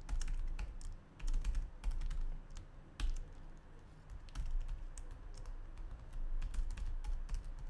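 Computer keyboard typing: runs of quick keystrokes broken by short pauses.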